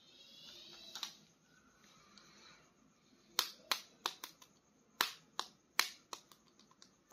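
A plastic action figure being handled: a run of about a dozen sharp clicks and taps in quick, irregular succession through the second half.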